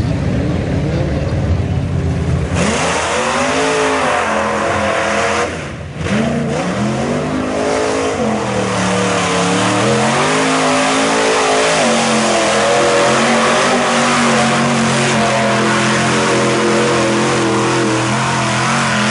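Mud truck engines revving hard as they power through a mud pit, the pitch swinging up and down with the throttle and then held high. A dense rush of spraying mud sets in about two seconds in, with a brief drop near six seconds in.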